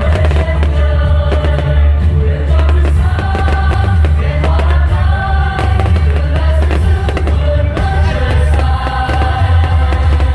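Loud music with singing over a heavy bass.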